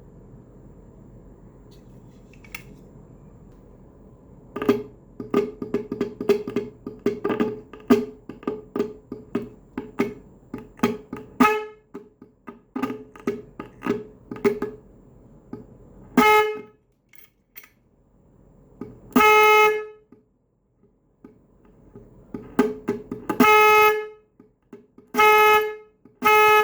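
Electric car horn sounding one steady, buzzy note: first a fast run of short taps, then several longer blasts of up to about a second each near the end.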